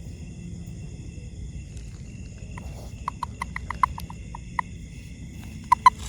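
Frog calls: a quick, irregular run of short, sharp pips that starts about halfway through, loudest near the end, over a steady high insect-like whine and a low rumble.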